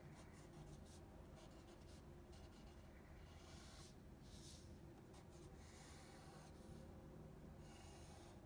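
Faint pencil scratching on paper as lines are drawn: a run of short quick strokes, with several longer strokes from about three seconds in.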